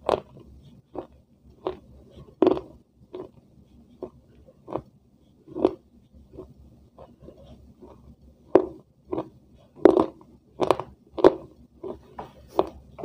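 A person chewing food close to a clip-on microphone: a run of short chewing and biting sounds, about one to two a second, louder in the second half.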